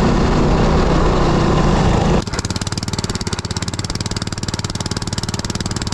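Honda scooter engine running with wind noise while riding, cutting off suddenly about two seconds in. It is replaced by a small wooden boat's engine running at a fast, even putter as the boat moves along the river.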